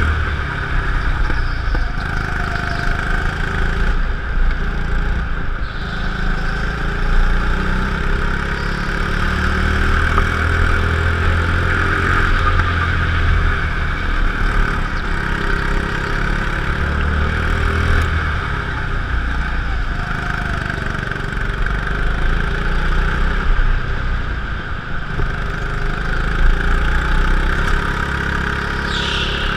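Go-kart engine running continuously as the kart laps an indoor track, heard from an onboard camera.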